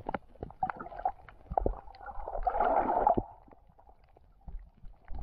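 Underwater sound picked up by a camera in its waterproof housing: scattered clicks and knocks, with a gurgling rush of water lasting about a second in the middle.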